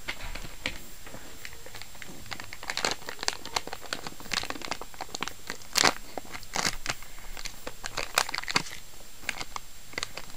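Metallized anti-static bag around a hard drive crinkling as hands pull and tear it open, in irregular sharp crinkles, the loudest about six seconds in.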